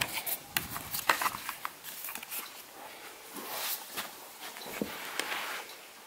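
Handling noise: a quick run of sharp clicks and knocks in the first second and a half, then soft rustling swells, as the camera is moved back from the fan's grille.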